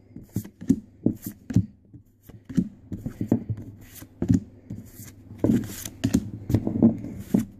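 Pokémon trading cards being flipped through by hand, one card at a time. Each card slides off the stack with a short papery flick, in a quick, irregular run of about two or three a second.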